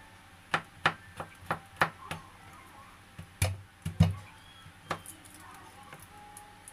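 Kitchen knife chopping onion on a cutting board: a run of quick, sharp chops about three a second, then a few heavier knocks, the loudest about four seconds in.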